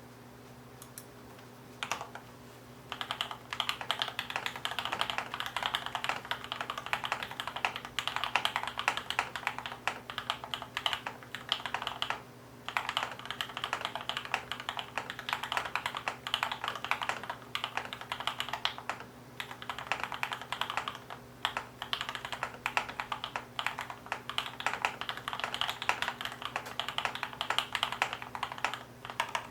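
Typing on a TESTER68 mechanical keyboard with factory-lubed Gateron Milky Yellow PRO linear switches, PBT keycaps, and Tempest and PE foam mods: a dense, fast stream of keystrokes. It begins with a few single presses about two seconds in and has short breaks near the middle.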